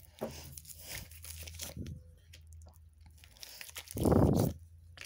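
A deck of tarot cards being shuffled by hand: an irregular papery rustling with small clicks of card edges. About four seconds in comes a short, much louder rush of noise.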